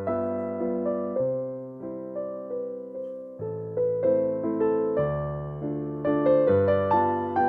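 Background piano music: a gentle melody of struck notes that each fade away, over a slower bass line.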